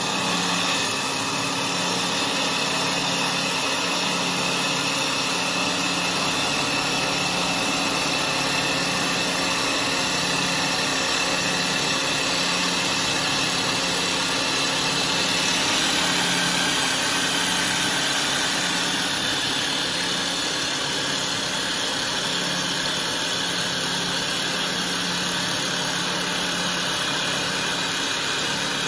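Three-spindle CNC wood lathe running and cutting, its spindles turning three wooden blanks as the cutters shape them into balusters. A steady machine drone with a low, slowly pulsing hum under the cutting hiss.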